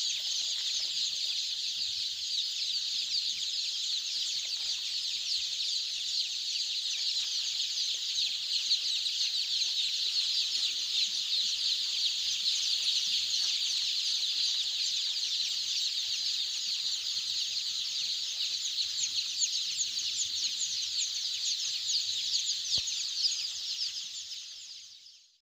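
A large flock of five-day-old Golden Misri chicks peeping continuously, a dense high chorus of overlapping chirps that fades out near the end.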